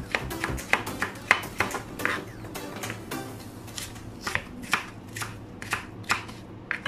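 Chef's knife chopping raw carrots into sticks on a cutting board: a run of sharp knocks, two or three a second, thinning out briefly around the middle before picking up again.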